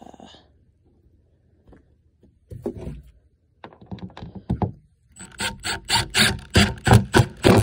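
Milwaukee M12 Fuel brushless cordless impact driver driving a fastener. It starts with a couple of short bursts, then hammers in a longer run of rapid clattering impacts over the last two and a half seconds.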